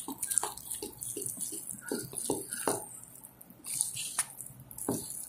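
A spoon stirring thick chocolate cake batter in a bowl, with irregular soft taps and scrapes against the bowl's side.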